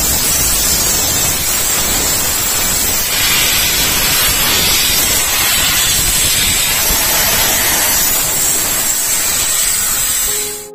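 High-pressure spray gun hissing steadily as it blasts the car's dust-clogged AC condenser fins clean, cutting off just before the end.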